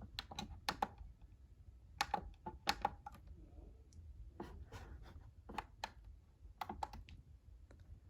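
Typing on a computer keyboard: short sharp key clicks in irregular clusters, with pauses between them.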